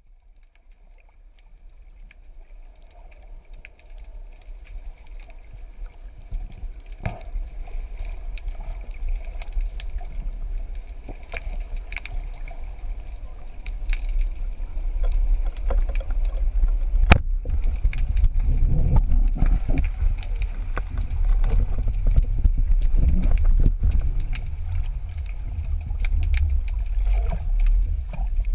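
Underwater sound through a camera's waterproof housing: a muffled low rumble of moving water with scattered clicks and a faint steady whine, growing steadily louder. One sharp click comes about two-thirds of the way in.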